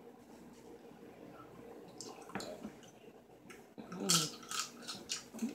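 Close-up wet mouth sounds of a person licking and sucking her fingers while eating boiled blue crab: a run of sharp smacking clicks, coming quickly in the last second and a half.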